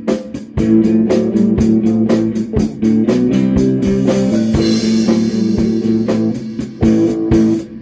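A rock band playing live: electric guitar and bass holding a blues-rock groove over drums, with steady hi-hat or cymbal strokes several times a second and a cymbal wash about halfway through.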